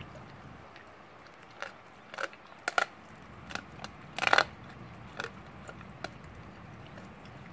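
Blue Bay Shepherd crunching the raw bones of a rabbit's rib cage: a string of sharp, irregular cracks, the loudest and longest about four seconds in.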